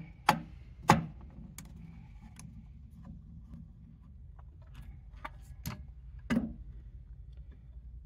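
Sharp clicks and taps of a screwdriver working small screws out of a safe's steel battery-compartment plate: a handful of separate metallic clicks, the loudest near the start and two more later, with lighter ticks between over a faint low hum.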